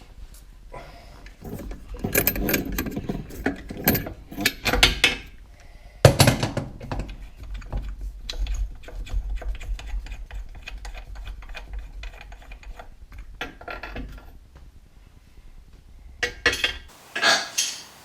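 Irregular metal clinks, knocks and scrapes of a tap spanner working on the fittings of a wash basin's hot pillar tap as the tap is taken off. There is a sharp knock about six seconds in.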